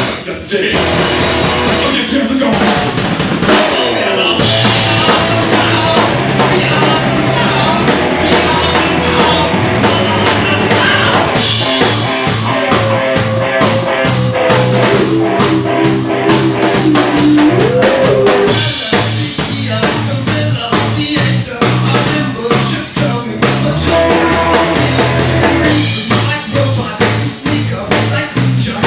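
Live rock band playing loud: a drum kit hit steadily throughout over guitars, with a long bending pitched line through the middle.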